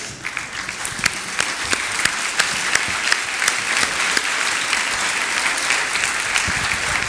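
An audience applauding steadily in a hall after a talk.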